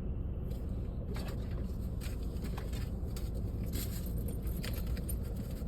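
Steady low rumble of a car, with light scattered clicks and taps over it.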